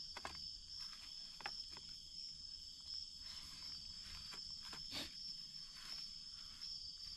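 Night insects calling in a steady high-pitched chorus, with a few faint clicks and taps scattered through it.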